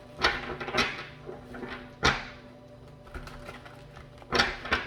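Tarot cards being handled on a table: a handful of separate soft knocks and slaps as the deck is worked and a card is drawn and laid down, with the last two close together near the end.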